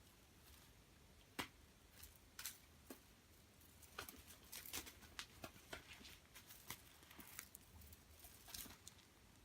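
Faint, irregular scratches and light taps of a cat's claws and paws as it plays with a worn, tattered toy, coming thicker from about four seconds in.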